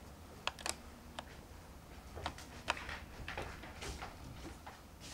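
Quiet, irregular small clicks and ticks, about a dozen, with a few soft hissy rustles between them, over a steady low hum.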